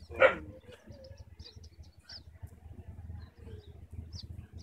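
Shetland sheepdog puppy giving one short yip about a quarter second in, followed by scattered faint high chirps and squeaks.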